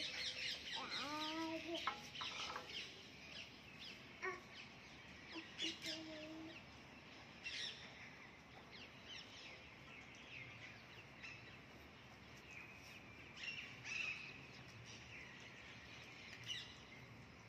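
Small birds chirping, many short, quick chirps, thick at first and then scattered. Two short, lower held calls stand out, one sliding about a second in and another about six seconds in.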